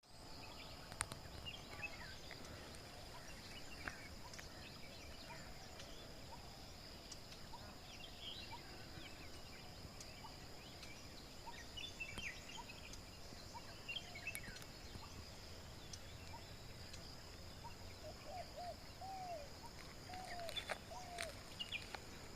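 Morning outdoor ambience: a steady high insect drone under scattered short bird chirps. Near the end, a bird gives a run of short, low, arched calls in two groups.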